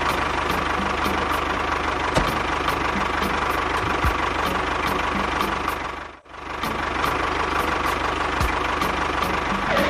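An engine idling steadily with a regular knocking tick. It cuts out briefly about six seconds in, then picks up again.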